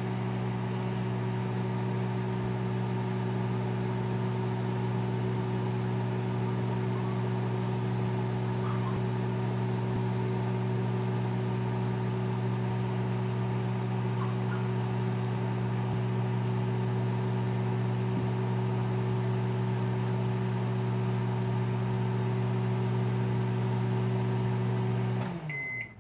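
Microwave oven running with a steady low hum while heating, cutting off about a second before the end.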